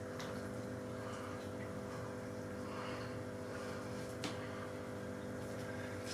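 Steady low machine hum with several constant tones, and one light click about four seconds in.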